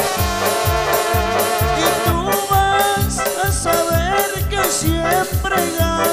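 Live band music in an instrumental passage between sung verses: a melody line over a steady, fast beat of low drum thumps.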